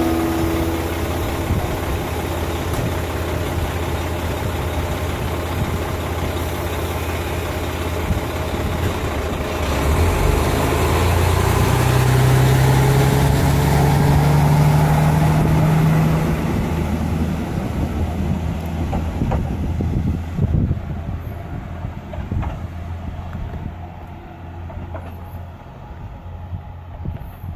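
Diesel railcar engine idling at the platform, then revving up with a rising drone as the railcar pulls away about ten seconds in. The sound fades away over the last several seconds as it recedes.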